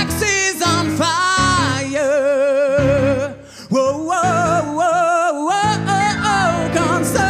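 A man singing long held notes with strong vibrato, live, over unplugged instrumental accompaniment.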